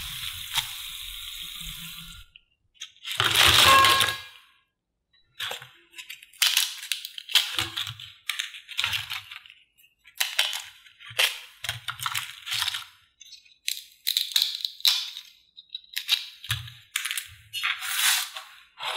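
Hot oil sizzling in the pan for about two seconds. Then crisp fried potato rolls clatter and clink on a stainless steel plate in a long run of short, sharp knocks, the loudest a ringing clatter about three seconds in.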